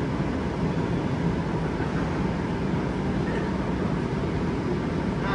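Steady, low-pitched background noise of a shopping mall's indoor ambience, with no distinct events.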